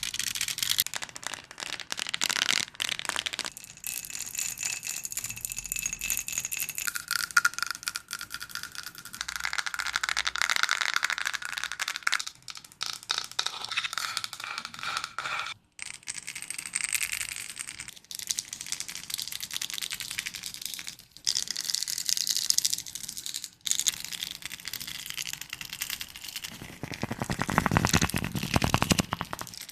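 ASMR trigger sounds made close to the microphone: a quick succession of rattles and dense clicking, the texture changing every few seconds as one trigger gives way to the next.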